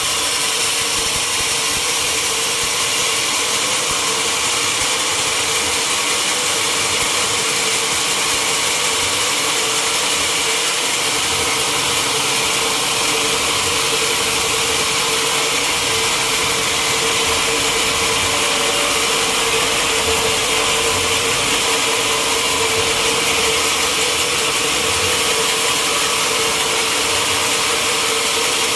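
Sawmill saw running steadily through a large mahogany log: a constant loud hiss over a steady hum that does not change.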